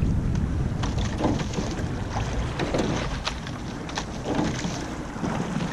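Eight-oared rowing shell under way: water rushing along the hull, with knocks from the oarlocks and oars at each stroke. Wind on the microphone.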